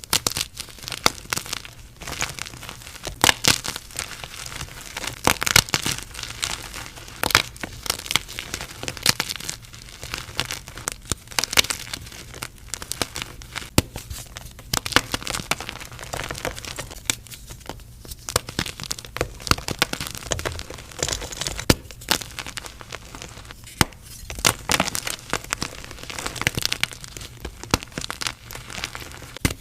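Blocks of gym chalk being crushed, a dense run of crunching and crackling with louder crunches every second or two.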